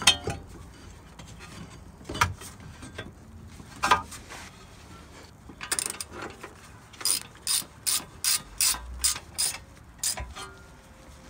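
Brake caliper knocking into place over the new pads with a few metal clunks, then a ratchet clicking in a run of short strokes, about two to three a second, as the caliper bolts are tightened.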